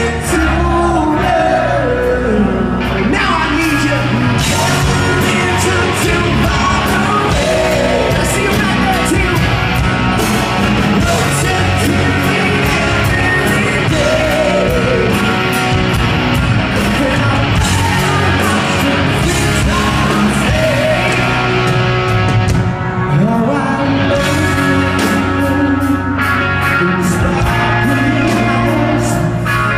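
A rock band playing live in a hall, with electric guitars, bass and drums under singing.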